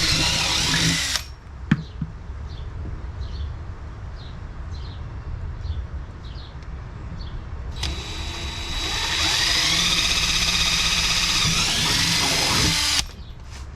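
Power drill with a 1/4-inch bit boring the marked mounting holes through a motorcycle tour pack. It runs and stops about a second in, then a click. After a quieter pause it starts again, speeds up with a rising whine, and stops near the end.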